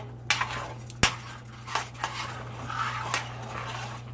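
Cooking utensil clinking and knocking against a pan of meatballs in sauce: a handful of separate knocks, the sharpest about a second in, over a steady low hum.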